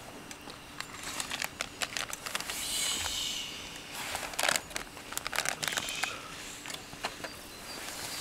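Plastic food packet crinkling and rustling as it is handled and opened: a run of irregular crackles and rustles, loudest about three seconds in and again about four and a half seconds in.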